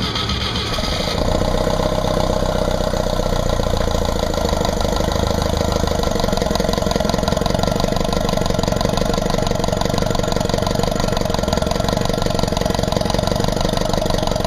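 Universal Atomic 4 four-cylinder gasoline inboard engine running, getting louder about a second in and then running steadily as it is warmed up.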